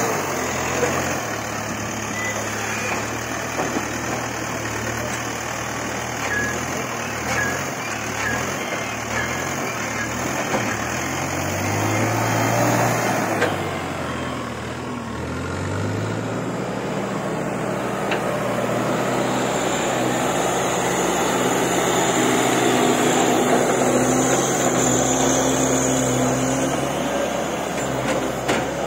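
Backhoe loader's diesel engine working, its revs rising and falling under load for about the first half. About halfway through it switches abruptly to a steadier engine note.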